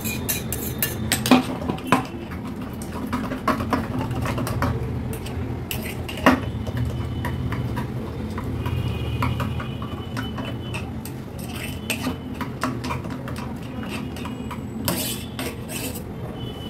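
A spatula scraping and knocking inside a stainless-steel mixer jar, then a spoon stirring thick mango-yogurt in a glass jug: repeated clinks and scrapes of metal on steel and glass, over a steady low hum.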